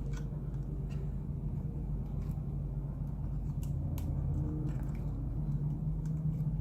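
Faint, scattered small clicks and ticks of laptop cables and parts being handled, over a steady low background hum.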